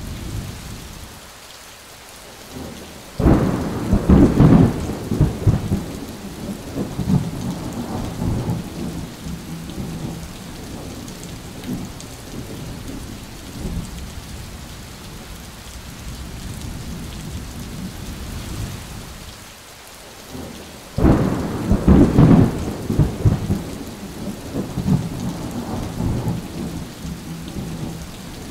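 Steady rain with two thunderclaps, one about three seconds in and another about twenty-one seconds in. Each starts suddenly and rumbles off over several seconds.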